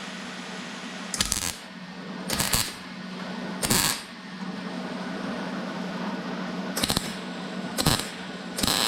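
Electric welder laying a series of short tack welds on thin car door sheet metal, with the amps turned down to stop the metal blowing out. About six brief crackling bursts, each under half a second, come a second or so apart, over a steady low hum.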